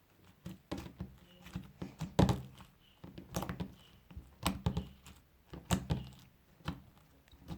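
Slime being worked by hand as beads are mixed in, giving irregular sticky clicks and soft thuds, about a dozen. The loudest comes about two seconds in.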